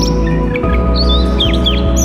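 Background music with held notes and a chord change about half a second in, over small birds chirping in quick, high, down-slurred notes.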